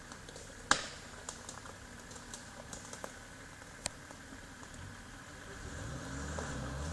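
Scattered light clicks and ticks, the sharpest one about a second in, over a quiet outdoor background. Near the end a faint, low off-road vehicle engine swells, its pitch rising.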